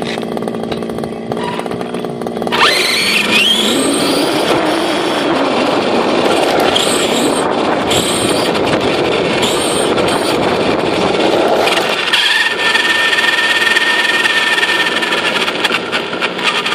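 Onboard sound of an ECX Torment 1/10 electric short-course RC truck: its motor whine rises as it accelerates away, then tyres and chassis rattle and rumble over rough asphalt, with a steady high whine for a few seconds near the end.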